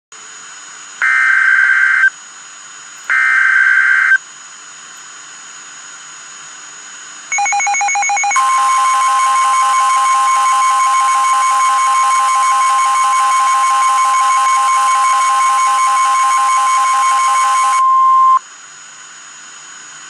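Emergency Alert System tornado warning: a few short buzzy data bursts of about a second each, then a loud, steady alert tone that holds for about ten seconds and stops near the end, over a steady hiss.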